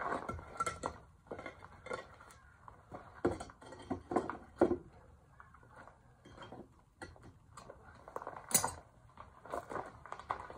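Irregular metal clinks, knocks and clatter as foundry tools are handled: the furnace lid is moved and tongs are set down. One sharp clank comes about eight and a half seconds in.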